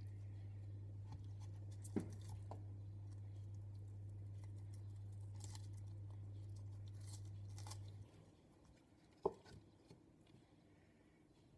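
Faint handling of artichokes being set into a clay pot: a light knock about two seconds in and a sharper one just after nine seconds. Under it runs a steady low hum that cuts off about eight seconds in.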